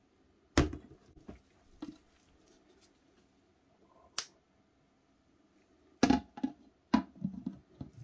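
A plastic food container is set down inside a stainless steel pot with a knock, followed by a couple of light taps. About six seconds in, the steel pot lid clanks and knocks several times as it is handled and set onto the pot.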